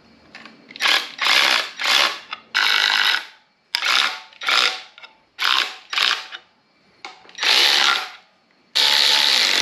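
Cordless electric ratchet running bolts into an LS1 engine's rear main seal cover, in about ten short runs of under a second each with brief pauses between.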